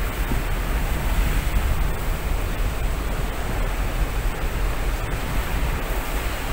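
Steady rushing noise of wind and heavy rain coming in through the open window of a moving vehicle, with a low buffeting rumble of wind on the microphone.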